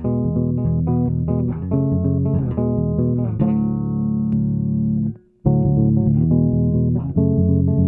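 Custom Carrigan Designs four-string electric bass with a Kent Armstrong MM pickup, plucking chords. Several notes sound together, and one chord rings for about two seconds. It is then cut off briefly to near silence before the plucking picks up again.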